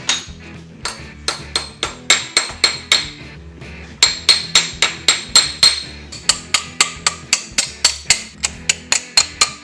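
Hammer blows on metal, quick and steady at about three to four a second, each with a short ring, with a brief pause about three seconds in. Background music plays underneath.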